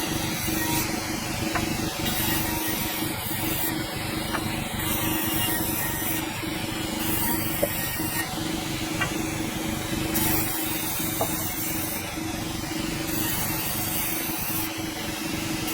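Sawmill running steadily, a constant hum under a continuous hiss, typical of the blade cutting through a hardwood log.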